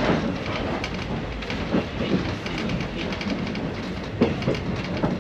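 Running noise inside an old train passenger coach: a steady rumble of wheels on rails with scattered rattles and clicks.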